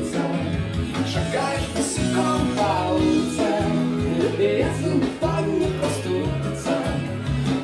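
Upbeat recorded pop song with singing, guitar and a steady beat, played through the DJ's sound system.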